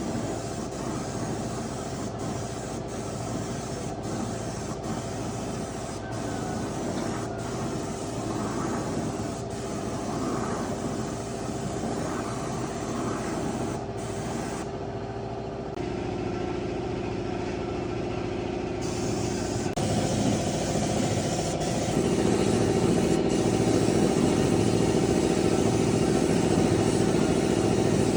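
Jeep engine running steadily, getting louder in steps about halfway through and again near the end.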